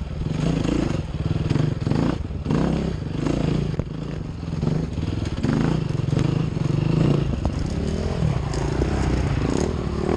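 Enduro motorcycle engine close to the rider, revving up and down in uneven throttle bursts on a steep rocky climb, with stones clattering and scraping under the bike.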